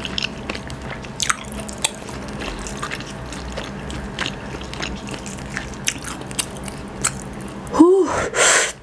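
Close-mic chewing of rice and spicy shredded chicken, with scattered wet mouth smacks and clicks. Near the end comes a short voiced 'mm', then a hard breath blown out through pursed lips against the chili heat.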